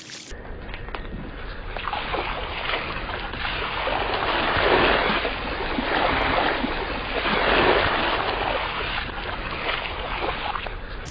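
Water gushing and splashing out of water-filled gloves as a car tyre crushes them, in surges that swell loudest about five and eight seconds in.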